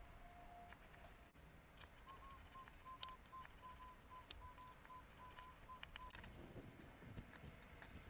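Near silence: faint scattered ticks with one sharper click about three seconds in, and a faint run of short, evenly spaced high beeps, about four a second, lasting about four seconds.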